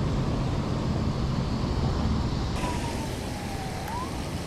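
Outdoor wind noise rumbling on the microphone, with a faint thin tone in the second half that slides down in pitch and then back up.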